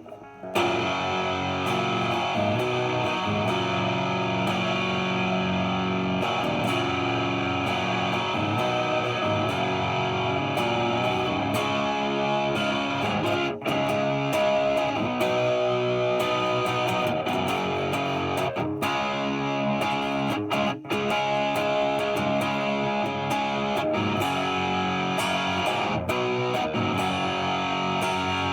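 Epiphone 1959 Les Paul Standard reissue played on its bridge humbucker through a distorted amp: sustained chords and riffs with a few short breaks between phrases.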